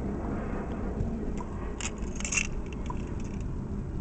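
Car engine idling steadily with a light ticking, which the owner puts down to the valvetrain and fuel injectors; the low knock he had taken for piston slap is not heard. A short rustle about two seconds in.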